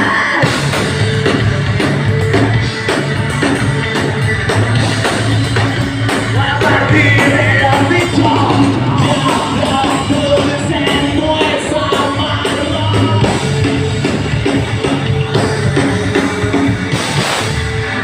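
Rock band playing live through a loud sound system, full band with singing.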